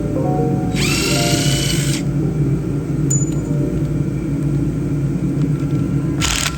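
A power tool whines over background music, winding up in pitch and holding for about a second, then again briefly near the end.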